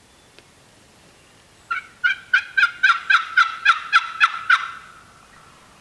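Turkey calls: a run of about eleven loud, evenly spaced notes, roughly three a second, lasting about three seconds.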